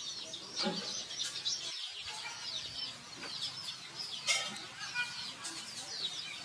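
Birds chirping busily: many short, high, sliding chirps, several a second, with a sharp click about four seconds in.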